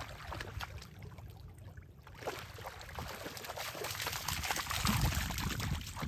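A dog wading and pawing in shallow lake water, water splashing and sloshing around its legs, busier and louder from about two seconds in.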